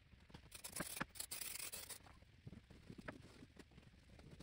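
Aerosol spray adhesive hissing faintly in a few short bursts during the first two seconds, then faint rubbing and light taps as headliner fabric is pressed down onto the board.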